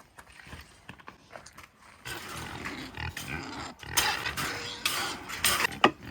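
Pigs grunting at feeding time. A few sharp, loud noises come in over the second half.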